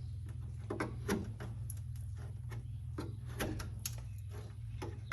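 Scattered light clicks and knocks, a few a second and irregular, over a steady low hum.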